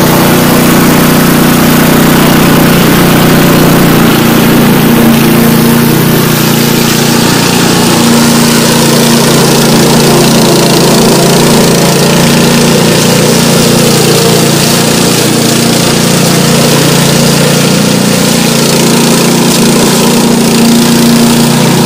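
Engine of a tracked remote-controlled brush mower running steadily while it mows through tall weeds and brush.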